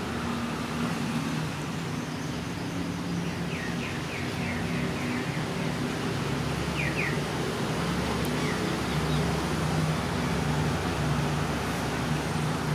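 Steady low mechanical hum and rumble throughout. A small bird chirps a quick run of short notes about three seconds in, and twice more briefly near the middle.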